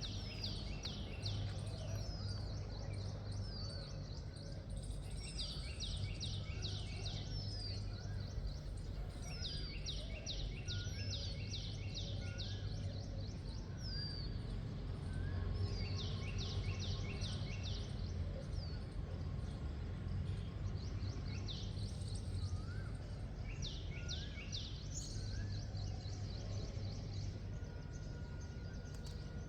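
Birds singing at dawn: one bird repeats a fast trill of high, downward-sweeping notes in short bursts every few seconds, while softer short whistles come in between. A steady low hum runs underneath.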